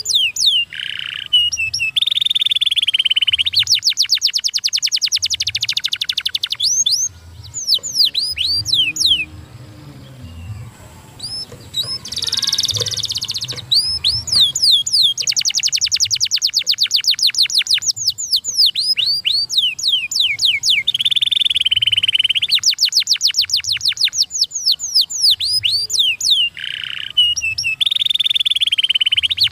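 Domestic canary singing: long phrases of fast trills made of rapidly repeated, high, falling notes, broken by a held buzzy note. The song thins out to scattered notes in the middle, then comes back in full.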